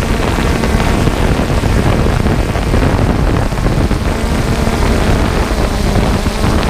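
John Deere harvest machinery running: a loud, steady engine and machine rumble.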